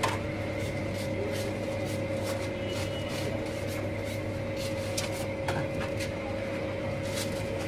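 A steady machine hum holding a constant tone, with frequent short, light crackles and rustles of paper as a shawarma roll is wrapped.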